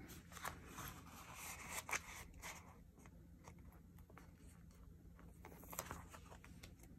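Sticker sheets being handled, flipped and bent, the paper rustling and crackling faintly in short bursts with small clicks, loudest about two seconds in and again near the end.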